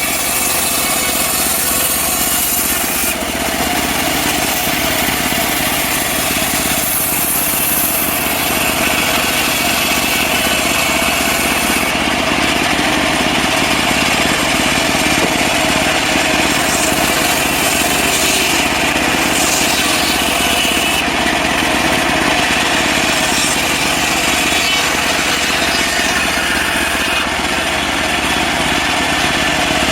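Engine-driven portable bandsaw mill running steadily while its blade saws through a mahogany log.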